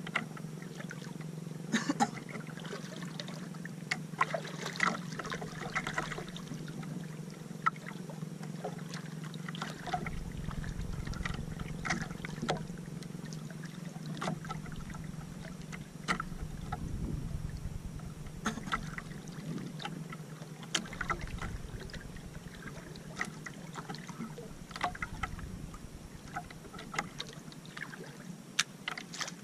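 Small waves lapping and splashing against an outrigger canoe's hull and bamboo floats, with irregular small slaps and drips. A low rumble comes and goes several times, likely wind on the microphone.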